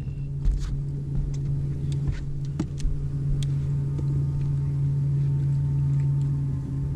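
Electric bow-mount trolling motor running, a steady low hum at one constant pitch that grows louder over the first few seconds and then holds, with a few light clicks over it.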